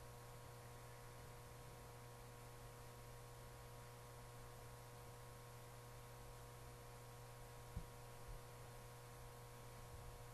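Near silence: a steady low electrical hum and faint hiss, with one faint click about eight seconds in.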